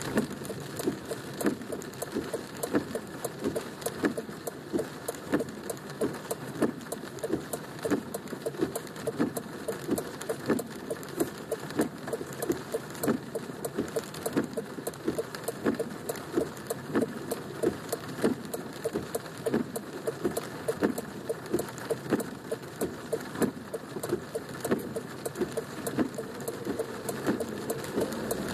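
Rain hitting the car's roof and windshield, heard inside the cabin: a dense, irregular run of sharp drop impacts, several a second, over a steady rain hiss.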